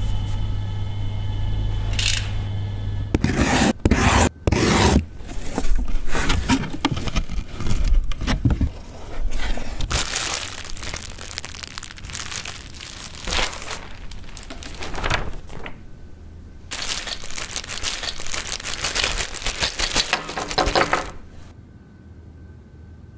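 Cardboard box and packing material being handled and unpacked: irregular rustling, scraping and crinkling of cardboard, foam and plastic wrap, with sharp handling knocks. A steady hum plays for the first three seconds, and the handling stops about 21 seconds in.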